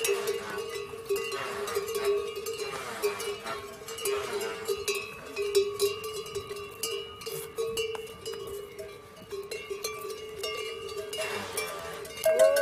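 Bells hung on pack yaks ringing and clanking steadily as a string of loaded yaks walks past, with many small sharp knocks among the ringing.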